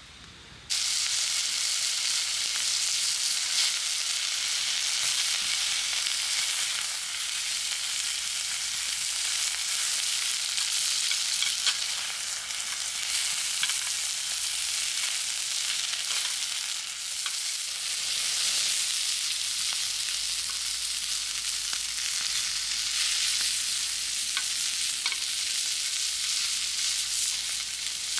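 Food frying in a hot pan: a steady sizzle with small pops and crackles, starting suddenly about a second in.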